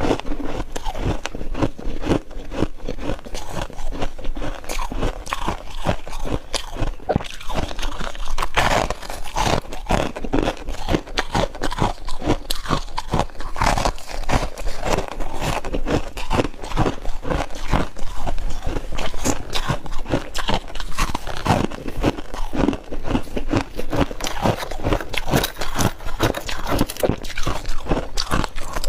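Close-up crunching as a person bites and chews mouthfuls of freezer frost, a dense, irregular stream of sharp crunches.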